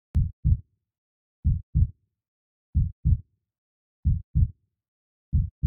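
Heartbeat sound effect: low double thumps, lub-dub, five times at a slow steady pace of about one beat every 1.3 seconds.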